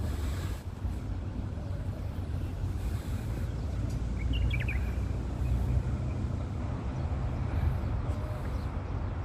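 Steady low background rumble, with a short high chirp, like a bird's, about four and a half seconds in.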